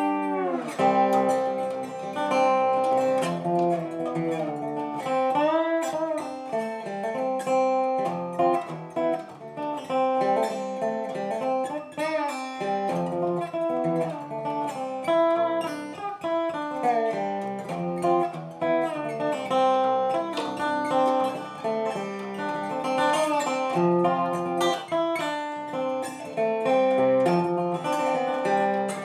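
Background music: a plucked guitar, acoustic and slide-like, playing a bluesy tune with bending notes.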